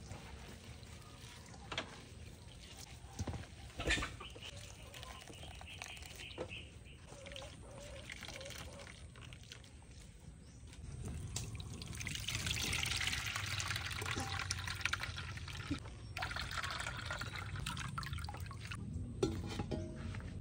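A few light knocks, then liquid pouring or trickling steadily from about halfway through.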